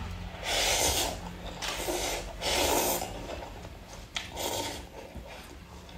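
A person slurping instant cup noodles off chopsticks: three loud, noisy slurps about two seconds apart.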